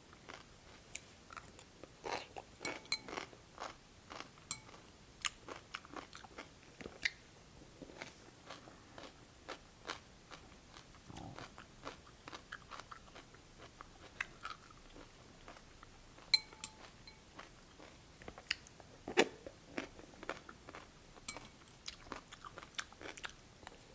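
A person chewing cold cucumber soup close to the microphone, with irregular crisp crunches from the cucumber.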